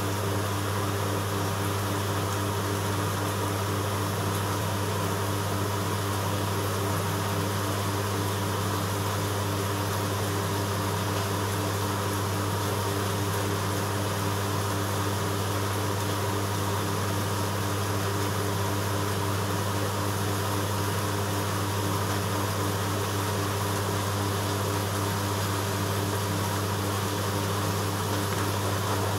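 Steady low hum and whir of reef-aquarium equipment, the return pump and circulation pumps running the tank and sump, with a faint even hiss of moving water.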